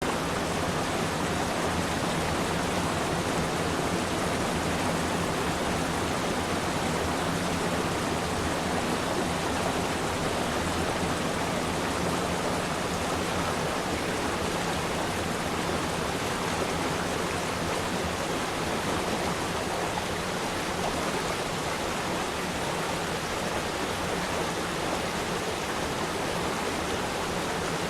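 Steady rain, an even unbroken hiss with no single drops standing out.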